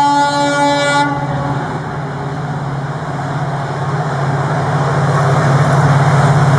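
WDG-4 (EMD GT46MAC) diesel locomotive sounding its air horn in one blast that cuts off about a second in. Its 16-cylinder two-stroke EMD 710 engine and the train's running noise then grow steadily louder as it approaches.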